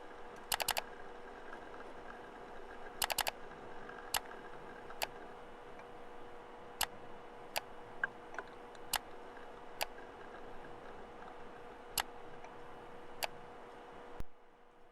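Steady computer hum with single mouse clicks every second or so, and two short rattles of key typing in the first few seconds.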